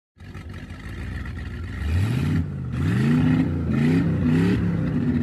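An engine revving: a steady run at first, then a sharp rise in pitch about two seconds in, followed by several quick revs up and down.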